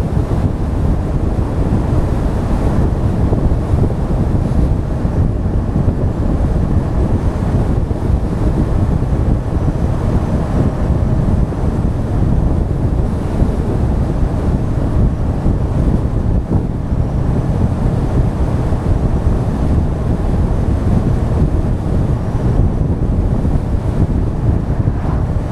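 Loud, steady wind buffeting on the microphone of an action camera mounted on the front of a motorcycle at riding speed.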